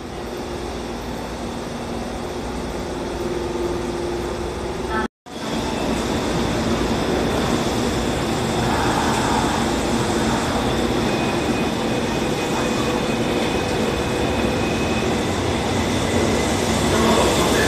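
Tokyo Metro Marunouchi Line subway train at an underground station platform: steady running noise of the train, which cuts out for a moment about five seconds in. Near the end a train pulls out of the platform.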